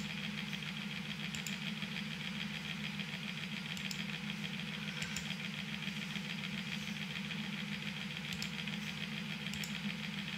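Steady machine hum from a small motor running indoors, with a fast, even flutter. A few faint clicks sound over it.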